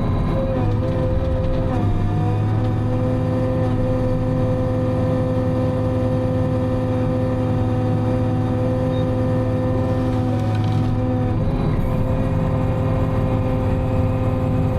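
Timberjack 608 harvester's engine running steadily under hydraulic load, heard from inside the cab. Its pitch shifts slightly about two seconds in and again near eleven seconds.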